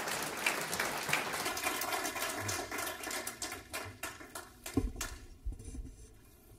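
Audience applauding, the clapping thinning out to a few scattered claps and dying away over the last couple of seconds.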